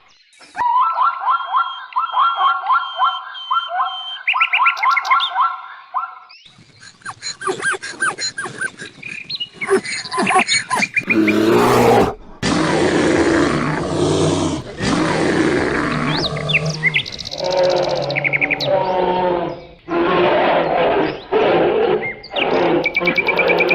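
A series of different animal calls one after another: rapid pulsed trills for the first few seconds, then short chirping calls, then louder, rougher calls in repeated bouts for the second half.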